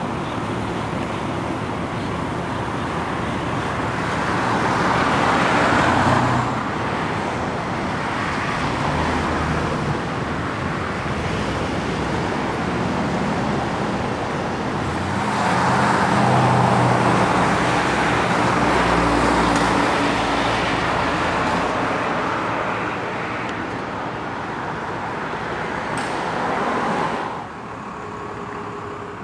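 Road traffic: vehicles passing in a continuous stream, swelling loudest twice as cars go by, about six and sixteen seconds in, then dropping off near the end.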